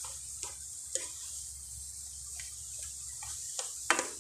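Instant noodles and carrot strips being stirred in a pan of simmering water, the stirring utensil knocking against the pan several times, most sharply near the end, over a steady simmering hiss.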